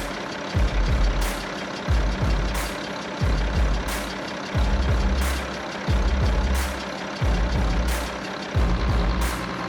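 Background music with a deep, downward-sliding bass beat and a sharp hit about every 1.3 seconds.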